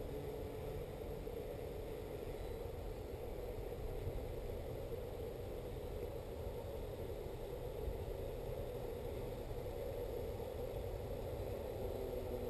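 Multirotor drone hovering at a distance: the steady hum of its electric motors and propellers, holding a wavering pitch.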